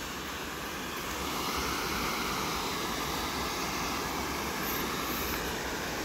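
Steady rush of water from a small river waterfall and its rapids.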